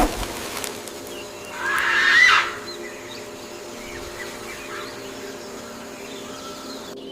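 Wild birds calling: one loud, rough call about two seconds in, then a few faint short chirps, over a steady low drone.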